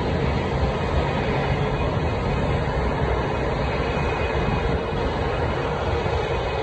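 Steady, unbroken rumble of aircraft and tow-tractor engines on an airport apron during an Airbus A220-300 pushback.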